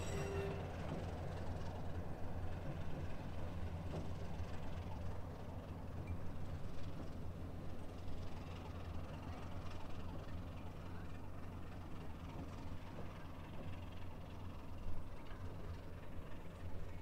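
Diesel-electric locomotive NSU 52's engine running with a steady low drone as it moves away down the line.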